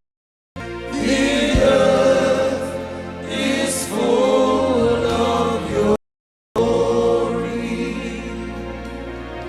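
Gospel worship music with choir singing over steady accompaniment. The sound cuts out completely for about half a second at the start and again about six seconds in.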